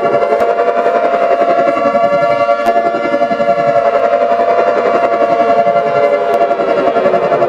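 Synthesized mock emergency-alert alarm: steady, layered electronic tones held throughout, under repeated falling siren-like sweeps.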